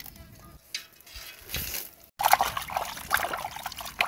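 Water splashing and sloshing as hands wash chunks of pork bone in an aluminium pot, rinsing off the salt they were scrubbed with. It is quieter at first, then louder and busier after a brief cut-out about two seconds in.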